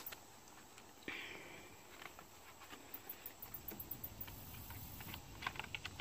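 Faint plastic scraping and light clicking as a replacement engine fuse box is handled and set onto its base: a brief scrape about a second in, then a run of small ticks.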